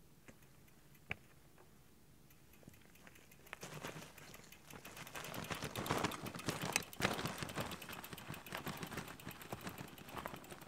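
Footsteps crunching on a loose, rocky trail as a loaded bikepacking bike is pushed uphill, an irregular stream of crunches that starts about three and a half seconds in after a quiet stretch with a single click.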